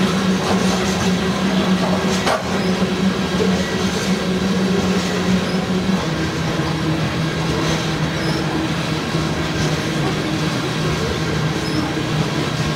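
Coal train hopper cars rolling past at speed: a steady rumble of steel wheels on rail. A low hum underneath steps down slightly in pitch about six seconds in.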